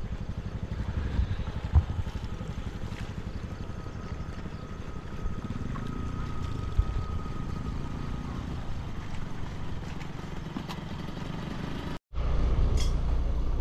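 A motor vehicle's engine running steadily as it travels along the road. The sound cuts out for a moment near the end and comes back louder.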